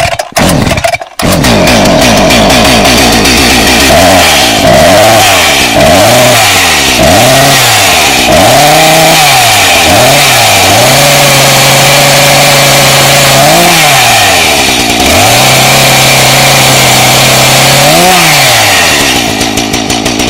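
Chainsaw engine stuttering for a moment, then catching. It is revved up and down in quick blips about once a second, then held at high revs with two short dips, and eases back near the end.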